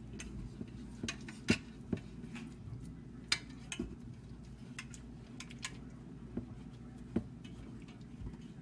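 Hands pressing and shaping raw ground-beef meatloaf mix in a small roaster pan: scattered light clicks and taps against the pan at irregular intervals, a few sharper than the rest, over a faint steady low hum.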